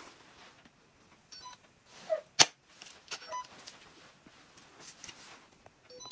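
Plastic clicks and handling noise as a phone is fitted into the clamp of an Insta360 Flow phone gimbal, with one sharp click about two and a half seconds in.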